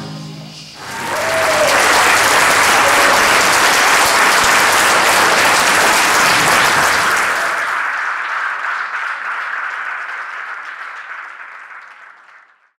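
Audience applause in a concert hall, swelling about a second in as the last orchestral chord dies away, holding steady, then fading out to silence near the end.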